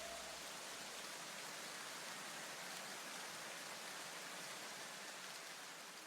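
Faint, even hiss that slowly fades out near the end.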